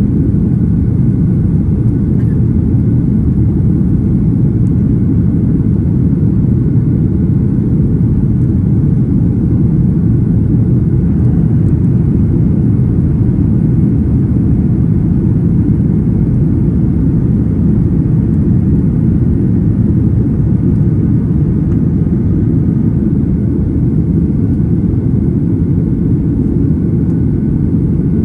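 Steady cabin roar inside a Boeing 737-800 climbing after takeoff: its CFM56-7B jet engines and the airflow heard from a window seat, a low even rumble with no change throughout.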